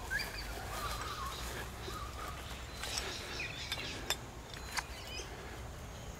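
Faint birds chirping and calling, short wavering notes scattered throughout, over a low outdoor rumble, with two sharp light ticks a little past the middle.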